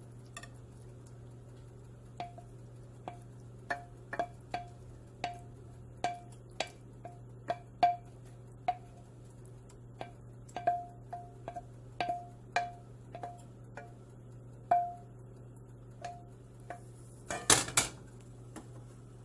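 Wooden spoon knocking and scraping against a stainless steel frying pan as cooked food is scooped out into a bowl, each knock followed by a short ring from the pan. A louder clatter near the end as the pan is set back down on the electric coil burner.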